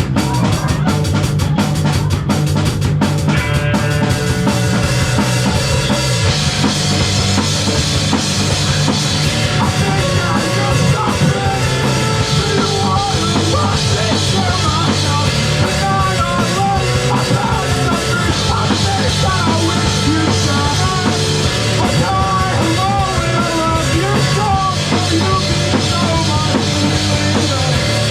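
Live rock band playing loudly, led by a pounding drum kit.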